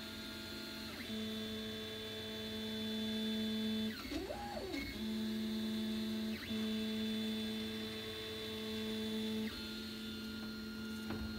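3D printer's stepper motors whining as the print head traces the part: steady tones that shift to a new pitch every few seconds as the moves change, with a quick rising-and-falling sweep about four seconds in.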